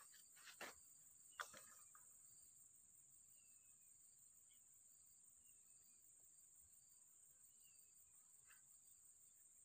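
Faint insect ambience: a steady high-pitched drone with a short chirp repeating about every two-thirds of a second, plus a few soft taps in the first two seconds.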